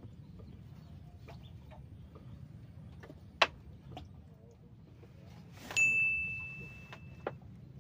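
A sharp click about three and a half seconds in, then a short whoosh and a single held electronic ding, a clear high tone that lasts about a second and a half and cuts off with a click. The ding is an edited-in notification chime marking a bite on one of the rods.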